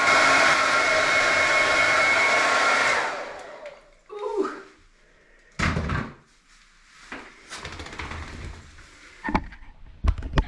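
Hair dryer blowing steadily with a high whine, switched off about three seconds in and winding down. Then come a few short knocks and thumps, the loudest about halfway through.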